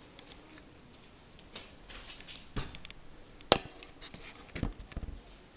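A few sharp knocks among scattered light clicks, the loudest about three and a half seconds in.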